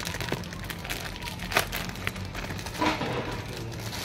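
Handling noise at the back of a PC case: small clicks and rustles of cables and hardware being moved, with two sharper knocks, one about a second and a half in and one near three seconds, over a steady low hum.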